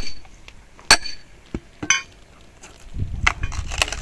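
Firewood being chopped: a sharp, ringing strike about a second in, two lighter knocks soon after, then a stretch of rustling and clattering of wood near the end.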